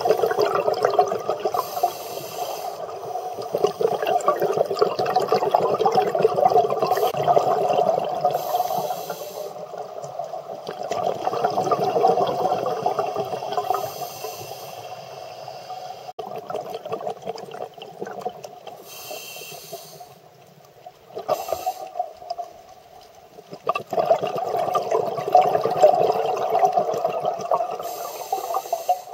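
Scuba diver breathing through a regulator: long runs of bubbling exhaled air, broken every several seconds by a short hiss of inhalation.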